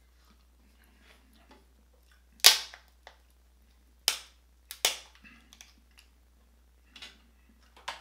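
Crab leg shells snapped and cracked by hand: a sharp crack about two and a half seconds in, the loudest, then several more sharp cracks, two close together near the middle and two near the end.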